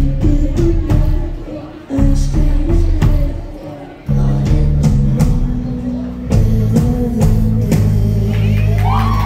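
Live rock band with guitars, bass and drums hitting loud chords about every two seconds and letting each one ring and fade. Near the end it holds a final chord to close the song, and the crowd starts cheering.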